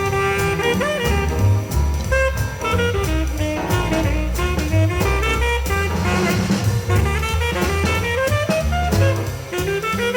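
Jazz with saxophone, bass and drums, played back through a parallel single-ended 300B tube power amplifier driving loudspeakers. The amplifier is run in full-power mode, which adds a little distortion.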